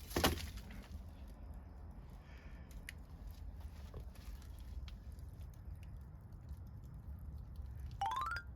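Wood fire crackling: one sharp loud pop just after the start, a few fainter snaps, and a low steady rumble of burning. Near the end comes a short whistle that rises in pitch in steps.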